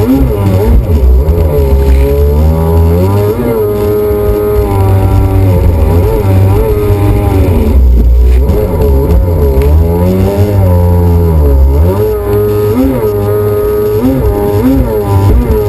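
Jet ski engine running at speed, its pitch rising and falling again and again as the throttle is worked through turns.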